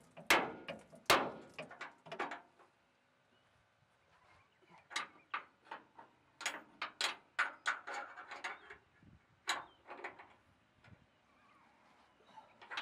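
Repeated sharp knocks on a steel frame plate as it is tapped flat against the pickup's frame before its nut is tightened. A handful of quick taps at first, a pause of about two seconds, then a longer irregular run of taps.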